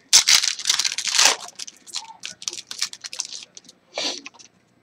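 Foil wrapper of a Bowman Chrome baseball card pack being torn open, with loud tearing and crinkling in the first second and a half, then lighter crinkles and clicks as the cards are slid out of the wrapper.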